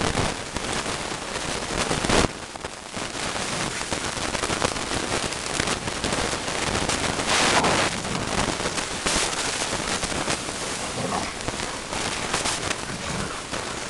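Two American bulldogs play-fighting on grass: a rough, noisy scuffle with sudden louder bursts about 2 seconds and 7.5 seconds in, over a steady hiss.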